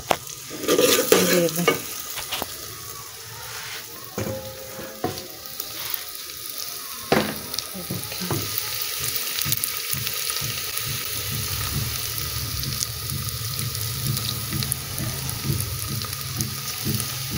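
Garlic-ginger paste sizzling as it fries in hot oil in an aluminium pot, with a steel spoon scraping and clicking against the pot as it is stirred. A few louder knocks of cookware about a second in.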